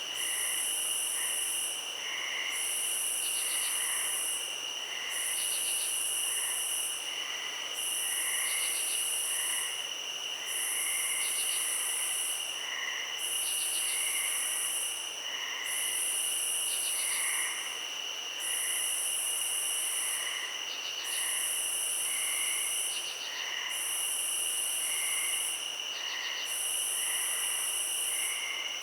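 Night insect chorus: a steady high-pitched trill runs under a very high buzzing call that repeats about every two seconds, each call lasting under two seconds. Soft scattered chirps sound lower down.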